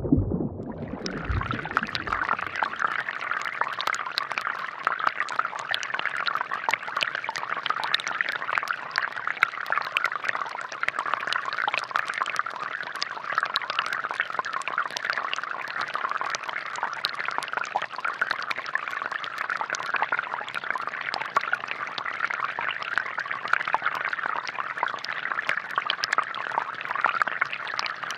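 Water from a small pump-fed DIY fountain pouring and trickling steadily into its plastic basin, with many small splashes; it starts about a second in.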